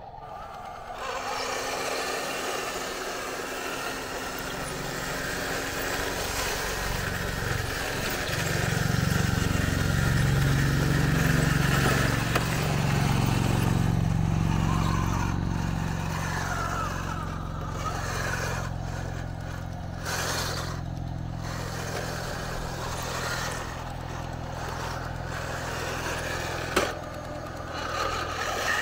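Radio-controlled Tiger I tank model driving, its sound unit playing a simulated tank engine that starts about a second in and runs louder for a few seconds in the middle before settling to a steady run, over the rattle of its tracks crunching on gravel. A single sharp knock near the end.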